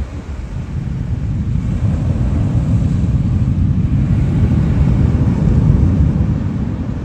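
Distant low rumble of SpaceX Starship Booster 9's 33 Raptor engines in a static fire, reaching the shore across the water. It builds from about a second in, swells for some five seconds and fades near the end, as the roughly six-second firing shuts down early.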